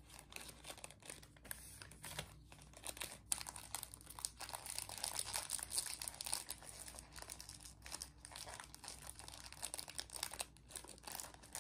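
Crinkly packaging of a ten-stick pack of Lemona vitamin C powder being torn open and rustled in the hands: a busy, irregular crackle of the wrapper, densest in the middle stretch.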